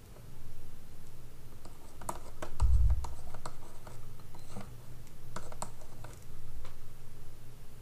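A pen stylus tapping and scratching on a tablet screen as numbers are handwritten, in short irregular clicks. A low thump comes about two and a half seconds in.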